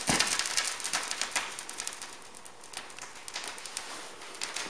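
Stylus of a Technics SL-BD20 turntable set down by hand on a vinyl record, touching down with a soft thump at the start, then irregular crackle and pops as it rides the lead-in groove before the music begins.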